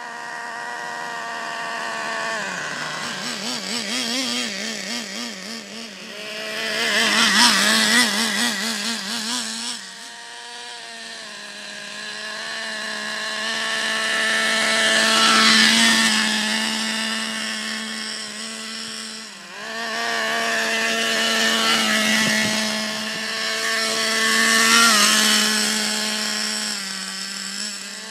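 Traxxas Revo 3.3 nitro RC truck's small two-stroke nitro engine running with a high, buzzing note. It holds a steady pitch for stretches, wavers up and down with throttle changes, and swells louder three times as the truck passes close.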